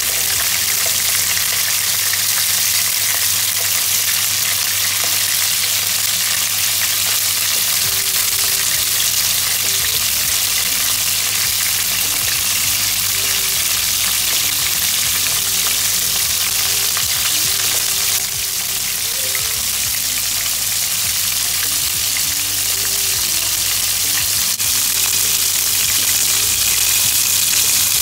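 Whole king prawns shallow-frying in hot oil in a pan, a steady, dense sizzle, as tongs turn them over one by one to fry each side.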